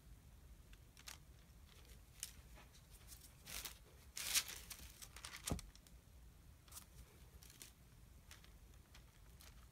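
A knife slicing down through a loaf of melt-and-pour glycerin soap topped with soap curls: faint scraping and crackling strokes, a few louder ones near the middle, and a soft knock a little past halfway.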